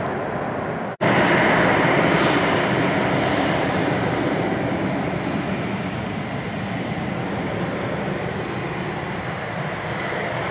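Boeing 767-200F jet engines running at low taxi power: a steady rumble with a thin, high, steady whine over it. The sound drops out for an instant about a second in, then comes back louder and eases slowly.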